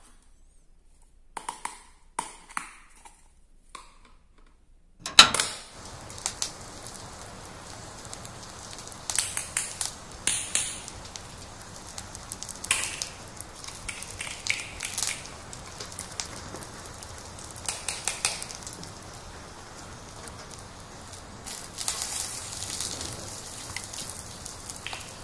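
A few light plastic clicks, then a sharp knock about five seconds in. After that a steady frying sizzle runs, with irregular bursts of crackle, as of an egg cracked into a hot pan.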